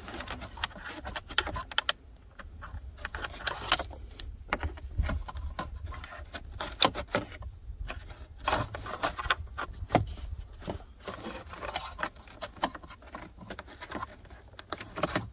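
Irregular scraping, rubbing and light clicking of a wire being fished up behind the dashboard through its plastic frame.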